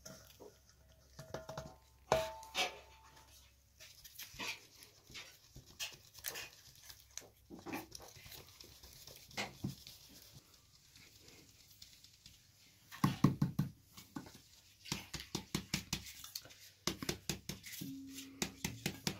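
Flour being sifted through a wooden-rimmed sieve over a plastic basin: soft scattered taps and swishes at first, then from about two-thirds of the way in a fast, steady rhythm of shaking with the rim tapping, several strokes a second.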